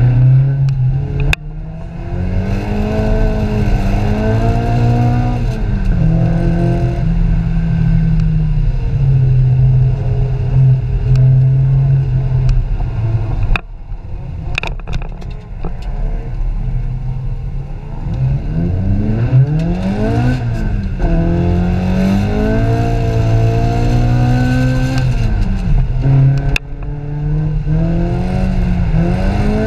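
Car engine heard from inside the cabin, driven hard: the revs climb and fall through gear changes, drop away about halfway through and build again. A few sharp clicks come in between.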